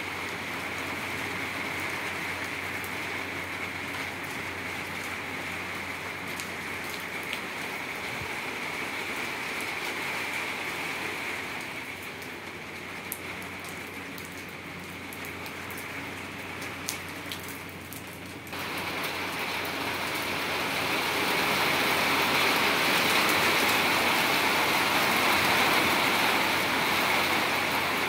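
Steady rain falling on a tiled courtyard, a continuous hiss of drops on wet tiles. About two-thirds of the way through it turns abruptly louder.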